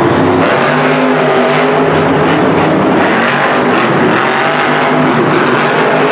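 Lucas Oil Crusader monster truck's supercharged V8 engine running hard and revving as the truck drives across the dirt arena.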